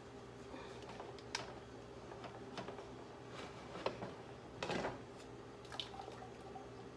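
A handful of light, scattered clicks and knocks as the opened pressure canner and its hot pint jars are handled, over a low steady hum.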